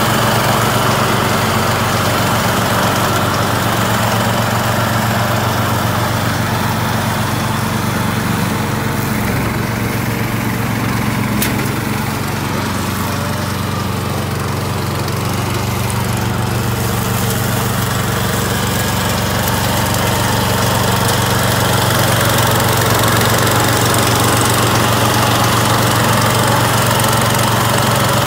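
Single-cylinder Lifan petrol engine of a Vezdekos TS 1000 walk-behind brush mower running steadily under load as the mower cuts through tall, rough grass.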